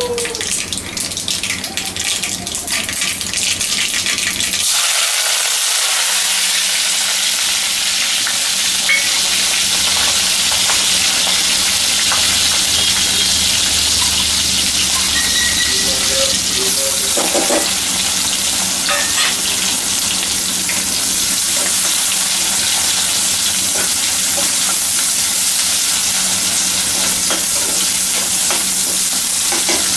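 Seeds spluttering and crackling in hot oil in a steel kadai, then, after about four and a half seconds, a steady loud sizzle as chopped green chillies, curry leaves and onions fry. Toward the end a steel ladle stirs the onions.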